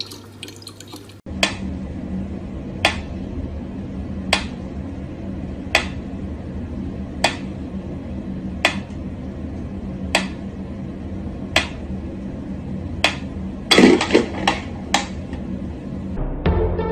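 Mechanical pendulum metronome ticking slowly and evenly, one sharp tick about every second and a half. Near the end comes a short cluster of louder knocks and clicks.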